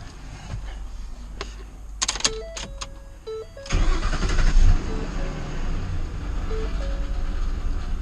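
Ford F-150 engine firing up suddenly about three and a half seconds in, with a brief surge, then running steadily. It starts once the AC blower motor relay is fitted in the starter relay slot, which points to a bad starter relay.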